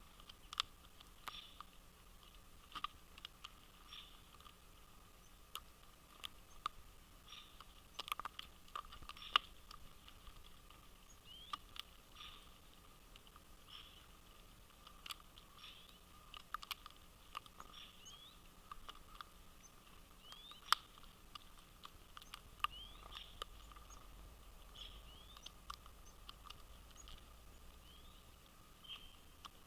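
Birds pecking at seed on a feeder: faint, irregular clicks and taps, with short high bird chirps scattered through.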